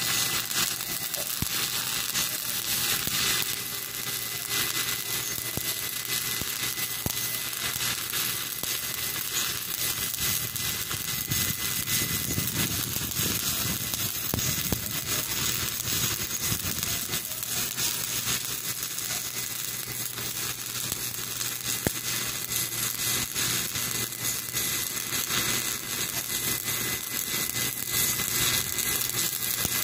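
Continuous crackling of a stick-welding arc as the electrode burns on steel, one unbroken bead with no pause.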